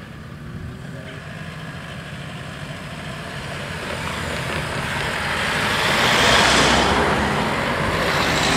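Cars driving across the level crossing and passing close by, the tyre and engine noise building steadily to its loudest about six seconds in and staying loud as another car goes by near the end.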